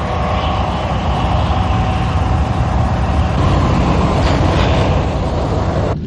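Cars driving through deep snow on a road in a blizzard: a steady rumble of engines with tyre and road noise.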